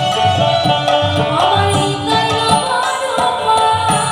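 Live stage music: a melody on long held notes over a steady hand-drum rhythm.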